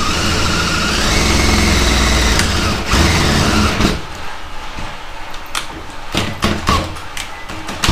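Power drill running a 7/16-inch twist bit through the car's trunk lid, its motor pitch rising about a second in, then stopping about four seconds in. Scattered clicks and knocks follow.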